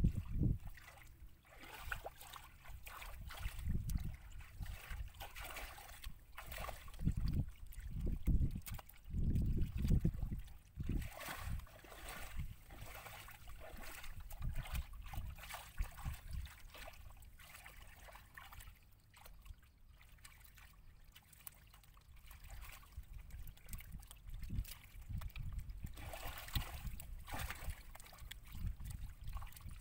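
Shallow muddy water splashing and sloshing irregularly as hands grope through the mud and legs wade, with dull low thumps that are heaviest in the first ten seconds.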